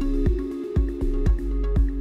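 Background electronic music with a steady beat of about two beats a second over sustained notes.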